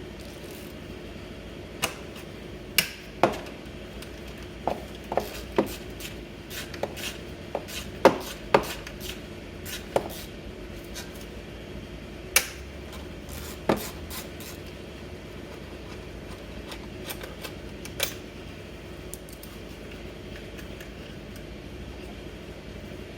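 Hand tools and parts clicking and clanking as a scooter's engine cover is taken off: about fifteen sharp, irregular knocks of metal and plastic, most of them in the first two thirds, over a steady low hum.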